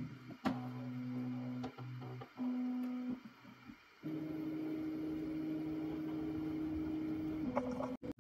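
Flashforge Adventurer 5M Pro 3D printer running its auto-calibration, its stepper motors moving the bed with a steady hum of constant pitch. The hum stops and starts a few times over the first three seconds. It then runs longer at a slightly higher pitch from about four seconds in until shortly before the end.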